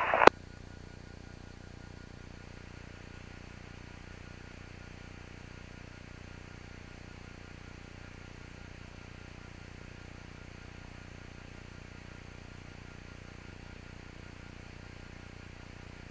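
Steady low hiss and hum of an aircraft's radio and intercom audio feed with nobody transmitting. There is a single click just after the start, as the previous radio transmission ends.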